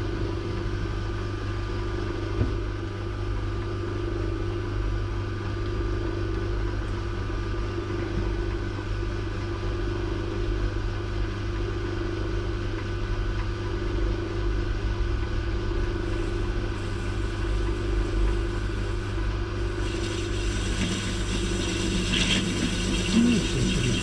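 Metal lathe running steadily with its spindle turning a brass workpiece, giving a constant motor and gear hum. About 20 s in, a higher scraping hiss joins as a hand-ground grooving tool is fed into the brass by hand and starts cutting.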